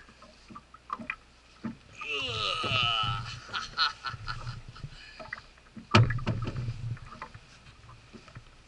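Handling noise on a fiberglass bass boat while a caught bass is landed and held: scattered knocks and clicks, with a high wavering call about two seconds in and a sharp, loud thump about six seconds in.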